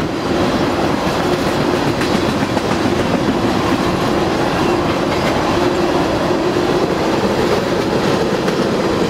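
Empty railroad tank cars of a freight train rolling past: steady, unbroken noise of steel wheels running on the rails.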